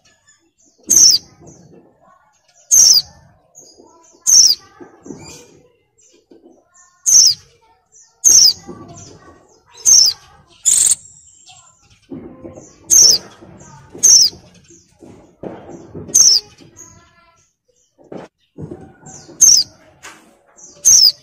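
Female white-eye (pleci) in breeding condition giving short, sharp, high calls that drop quickly in pitch, about a dozen of them, one every one to two seconds. Fainter low rustling sounds lie between the calls.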